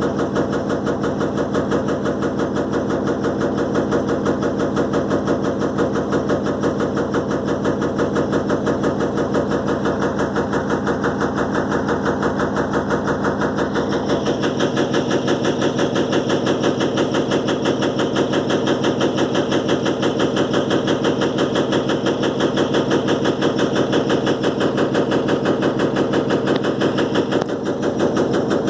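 Electrolux LTE12 washing machine in its spin cycle, running with a fast, steady rattling from the shaking machine as the suspension is tested with a deliberately bunched-up load. About 14 seconds in the sound changes and grows brighter.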